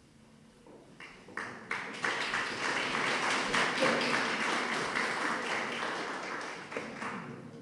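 Audience applauding: a few scattered claps about a second in swell into full, steady applause, which fades away near the end.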